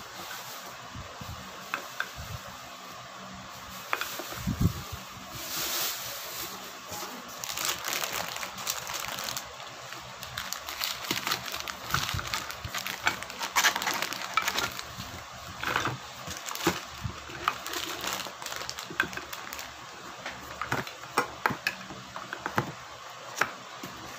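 Metal food cans clinking and knocking against each other as they are moved around in a cardboard box, with many short irregular clinks and a stretch of rustling about six seconds in.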